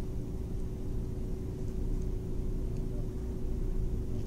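Steady low background hum with a faint steady tone, and a few faint small clicks of metal probe-kit parts being handled.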